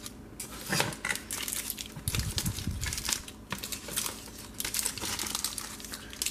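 Plastic wrappers of long Laffy Taffy Rope candies crinkling as the packs are picked up and handled, in quick irregular rustles.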